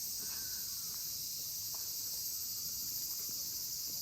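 A steady, high-pitched insect chorus droning without a break, with faint voices in the background.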